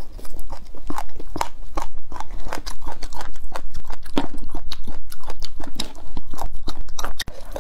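Close-miked chewing of a mouthful of spicy chicken-foot tendons and vegetable roots: a rapid, irregular run of crunchy clicks.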